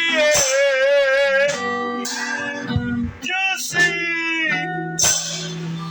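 Guitar music with a wavering, held melody note over it near the start and shorter melody notes after.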